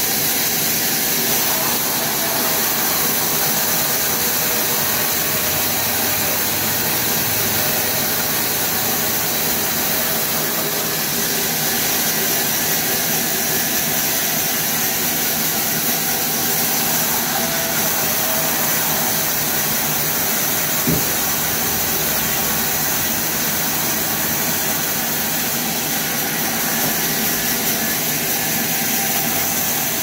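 A sawmill's vertical band saw and its machinery running with a steady, bright noise and no clear pitch. There is one sharp knock about two-thirds of the way through.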